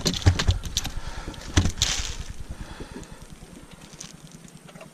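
A landed walleye flopping on the landing net and carpeted boat deck: a few dull thumps and slaps with clicks in the first two seconds, then soft clicking and rustling of the net mesh as a hook is picked out of it.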